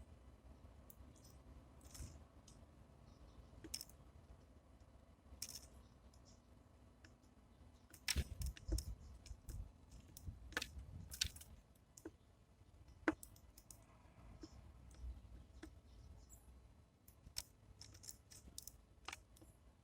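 Sparrows feeding at a bird feeder: irregular sharp clicks and taps of beaks pecking at seed, with a cluster of louder knocks about eight to eleven seconds in.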